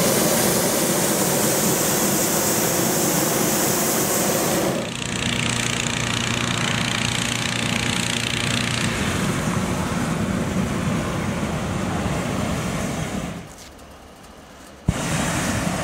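Hot-air balloon's propane burners firing during hot inflation: a loud, steady rushing roar. It drops away about 13 seconds in, and a sharp click a second and a half later brings it back. A steady engine hum runs beneath.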